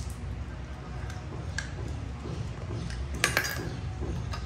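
Ice cube clinking and knocking on a hard surface as a dog plays with it: a few sharp separate clicks, the loudest cluster about three seconds in.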